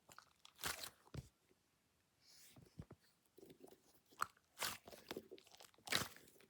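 Faint handling noises: scattered crackles and rustles of hands working over a foam squishy toy, picking hairs off it.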